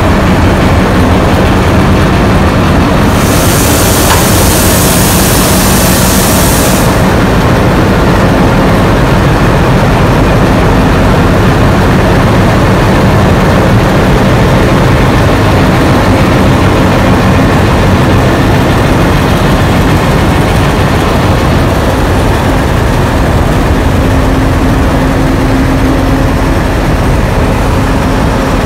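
Diesel engines of 442 class locomotives, ALCO V12s, running close by with a heavy, steady throb. A loud hiss comes in about three seconds in and lasts about four seconds.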